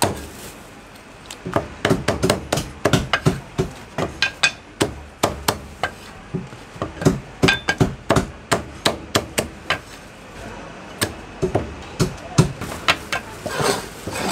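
Heavy cleaver chopping soy sauce chicken on a thick round wooden chopping block: sharp knocks in irregular runs, at times several a second, with short pauses between runs.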